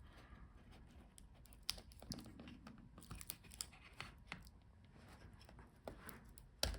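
Faint clicks and light rustling from handling the laptop's cooling fan as it is lifted out, with one sharper click near the end.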